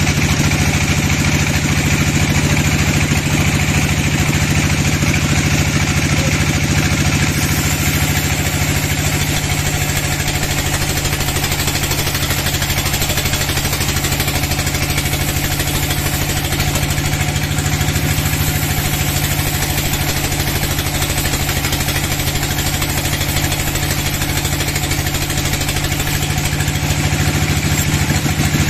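Large sawmill band saw running steadily, its blade ripping lengthwise through a dry teak log.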